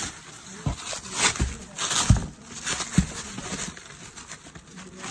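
Bubble wrap and a cardboard box rustling and crinkling as the packing is handled, with a few dull thumps of the box being knocked.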